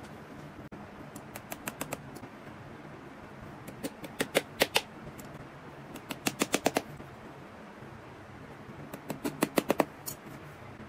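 Shoemaker's hammer tapping on a leather boot, in four quick bursts of about five to nine light, sharp strikes each.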